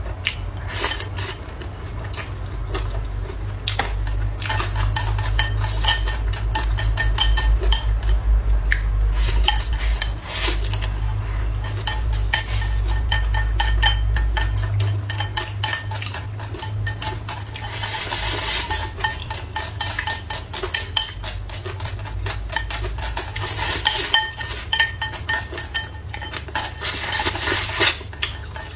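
Eating sounds: chopsticks and a spoon clinking and scraping against bowls and dishes, with many sharp clicks and two short hissy spells of scraping or slurping in the second half. A low rumble underlies the first half and stops about halfway through.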